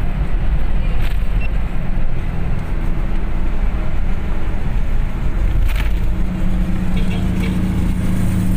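Road and engine noise of a car driving on a highway, heard from inside the cabin: a loud, steady low rumble with a couple of brief knocks, and a steady hum joining about six seconds in.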